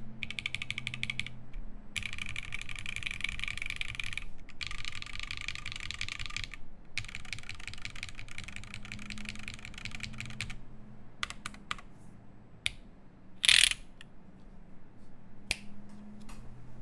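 Typing on a Keycult No.1 TKL mechanical keyboard with lubed Alpaca linear switches in an aluminium plate and GMK keycaps. A fast, dense run of keystrokes with brief pauses thins out after about ten seconds to scattered single presses. One press a little past the two-thirds mark is much louder than the rest.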